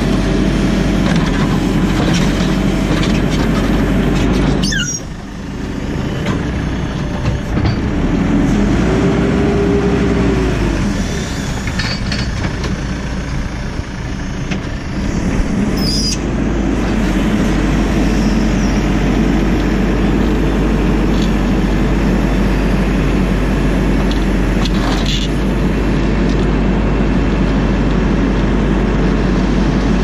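JCB 4CX backhoe loader's four-cylinder diesel engine running steadily under load while the backhoe hydraulics work the bucket through gravel. A brief whine rises and falls about ten seconds in, and the sound dips for a moment about five seconds in.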